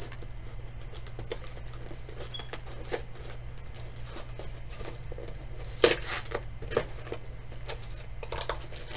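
Cardboard box being pried and torn open with a pencil: irregular scratching, small tearing and crinkling, with the loudest tearing burst about six seconds in and another short cluster near the end.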